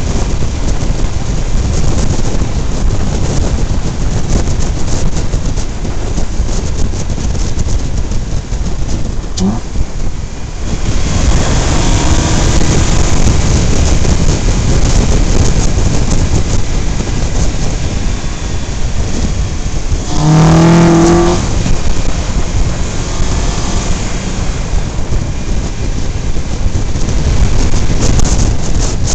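Steady wind rush and road noise from a camera mounted low on a vehicle at speed; it gets louder and brighter about eleven seconds in. Around twenty seconds in, a brief pitched tone of about a second cuts through.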